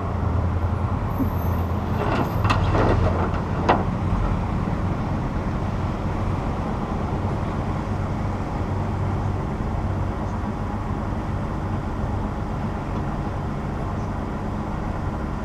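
Pickup truck's engine running with a steady low rumble. A few clicks and one sharp tap come about two to four seconds in.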